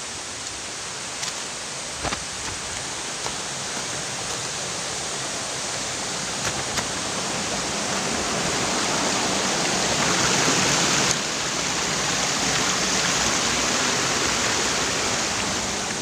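Waterfall's rushing water, a steady roar that swells to its loudest about two thirds of the way through and then eases slightly, with a few light knocks.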